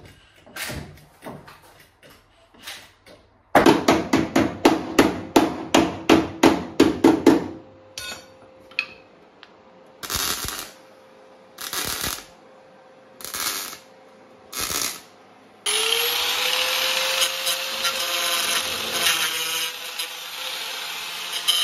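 Repair work on a rally car's sheet-steel inner wheel arch. First comes a quick run of hammer blows on the metal, about three a second, then four short bursts of noise. About three-quarters of the way through, a small cut-off grinder spins up and grinds steadily at the welded steel.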